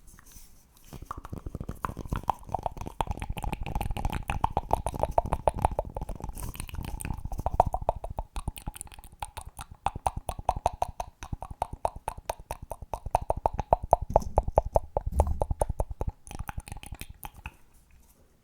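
Fast, close-miked ASMR clicking and popping, about ten sharp clicks a second with a steady ringing pitch. It starts about a second in and thins out near the end.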